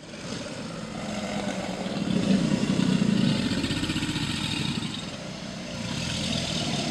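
American alligators bellowing: a deep, engine-like rumble from several animals together. It swells to its loudest about two to three seconds in, eases off, then rises again near the end.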